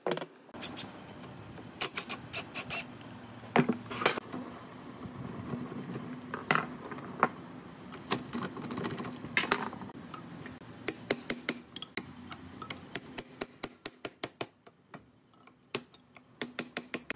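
Metal parts clinking and tapping against each other while a small motor hums steadily; the hum stops near the end, followed by a quick run of light clinks.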